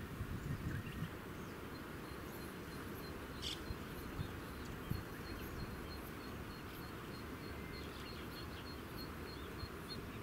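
Outdoor ambience: steady low outdoor noise, with a faint high-pitched chirp repeating about three times a second through most of it and one sharper chirp about three and a half seconds in.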